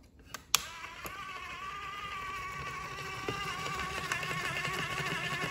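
Toy stand mixer clicked on, then its small electric motor whirring with a steady buzzing whine as the beaters turn in liquid, growing slightly louder.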